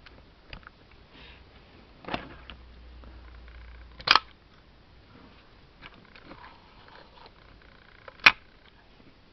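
FED 3 rangefinder camera's focal-plane shutter and mechanism being worked: a softer click with a low steady rustle about two seconds in, then a sharp shutter click at about four seconds and a louder sharp click near the end.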